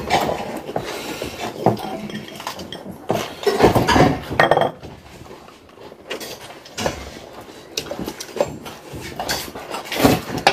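Steel plates and bowls clinking and knocking now and then as people eat a meal.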